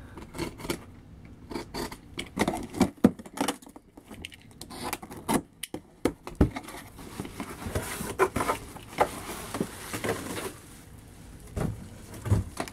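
A cardboard toy box and its packaging being opened and handled by hand: irregular taps, knocks, scrapes and rustles.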